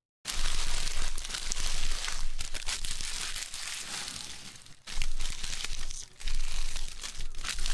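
Torn foil trading-card pack wrappers being crumpled and gathered up by hand: a dense crinkling crackle that starts suddenly just after the start, with two brief lulls about five and six seconds in.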